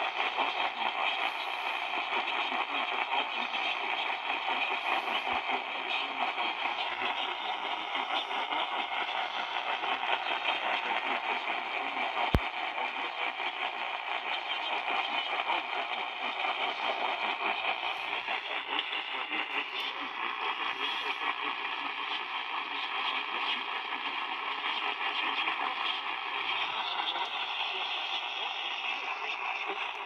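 Weak AM broadcast from WWL 870 playing through a small portable radio's speaker: a voice reading the Emergency Alert System flash flood warning, half-buried in static and hiss. One sharp click comes near the middle.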